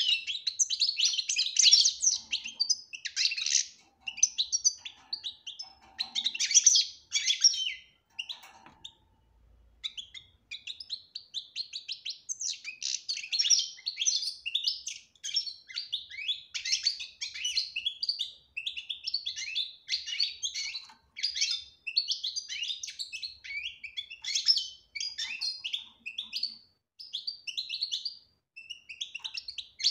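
European goldfinch singing a fast, chattering twitter of high notes. It breaks off for about two seconds a third of the way in, then sings on almost without a break.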